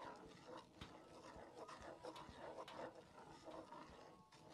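Faint scraping of a wooden spoon stirring butter and brown sugar syrup in a cast iron skillet, with a few soft clicks against the pan.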